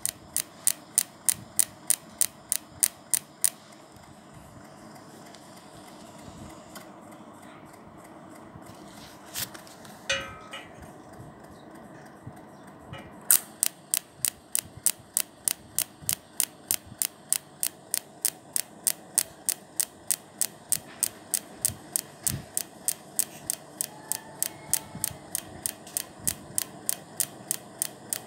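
Welding machine firing in a steady rhythm of sharp clicks, about two and a half a second, over a low hum. The clicks stop for about ten seconds partway through, then start again.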